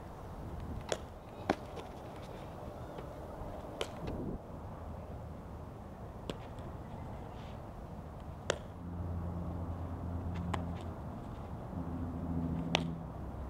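A softball smacking into leather gloves during catching and throwing drills: several sharp pops a few seconds apart. A low steady hum comes in about nine seconds in.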